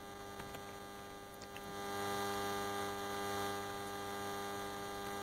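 Steady electrical mains hum, a buzz with many evenly spaced overtones on the audio line, with a few faint clicks.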